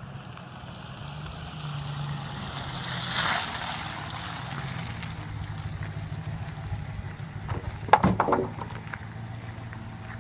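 Steady low engine hum of a motor vehicle, with a short clatter of knocks about eight seconds in.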